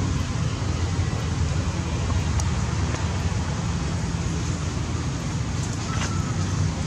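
Steady low background rumble with a hiss over it, unbroken throughout, with a few faint ticks.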